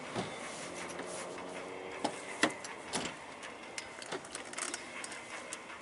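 A scatter of light clicks and knocks, the sharpest about two and a half seconds in and a quick cluster near the end, over a faint steady hum.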